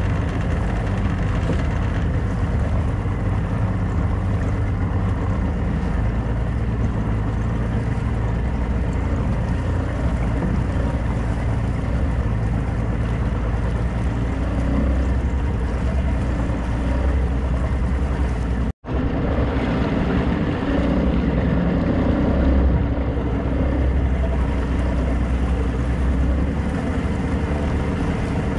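Small motorboat under way, its engine running at a steady low drone over the rush of water and wind. The sound cuts out completely for an instant about two-thirds of the way through, then carries on unchanged.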